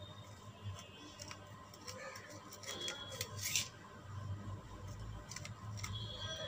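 Kitchen knife slicing through a ripe star fruit on a stainless steel plate: a string of soft, crisp cuts and light clicks of the blade on the steel, the sharpest ones a little past the middle.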